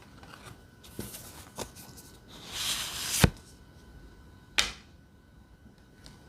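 Tarot cards being shuffled by hand, close to the microphone. There are a couple of light taps, then a rising riffle of about a second that ends in a sharp snap, and another snap about a second later.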